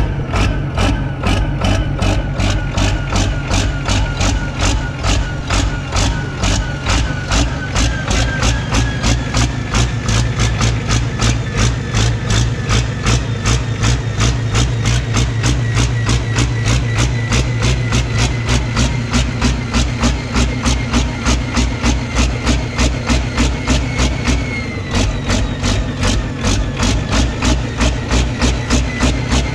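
Turbocharged diesel engine, bare on a test stand with an uprated fuel system and a bigger turbo, running with an even pulsing beat of about three a second and a thin whine slowly rising in pitch. About twenty-five seconds in, the sound dips briefly, then picks up again.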